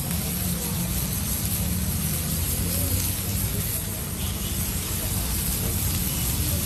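Chopped onions and tomatoes sizzling on a hot flat-top griddle, an even hiss over a steady low rumble.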